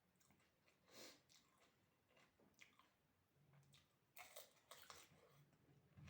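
Faint close-up chewing and biting of panipuri (fuchka), with small crackly crunches and wet squishes. There is a louder flurry of crunching about four seconds in.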